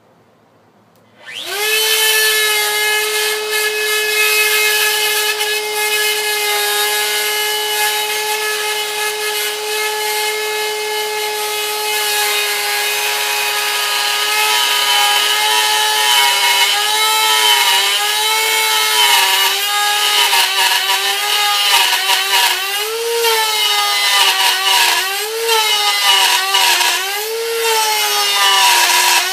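Electric wood router switching on about a second in and running up to a steady high whine. From about halfway it cuts a scarf bevel into a wooden plank, its pitch dipping again and again as the bit bites into the wood under load.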